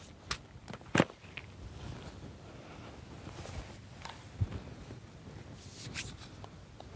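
Footsteps on dry grass, with a few sharp clicks and knocks from handling and extending a trekking pole; the loudest click comes about a second in.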